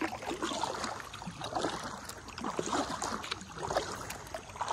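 Kayak paddle strokes: the blades dipping into the river with irregular splashing and dripping water.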